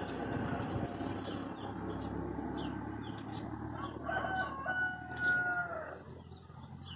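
A rooster crowing once about four seconds in: a few short notes, then one long held note that drops away at the end.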